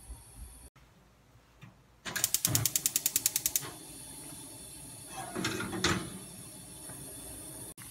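Gas stove's spark igniter clicking rapidly, about ten clicks a second for a second and a half, until the burner catches; then a steady hiss of the lit gas flame, with a brief handling noise about two seconds later.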